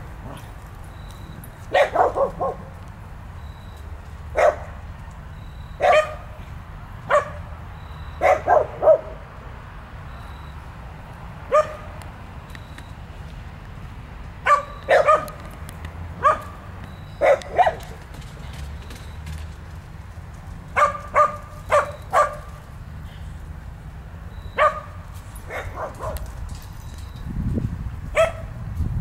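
Dogs barking in play: short single barks and quick runs of two to four, every second or few seconds, with short pauses between.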